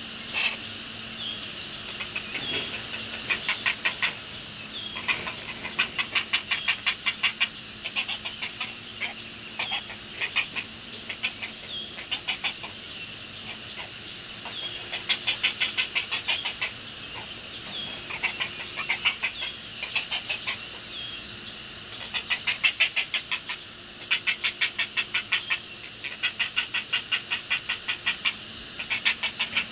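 Great blue heron nestlings giving rapid, chattering begging calls: bouts of fast clacking notes, about eight a second, each bout lasting one to two seconds and repeated over and over.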